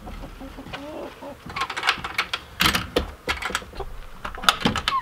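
Hens clucking close by, mixed with a series of sharp clicks and knocks.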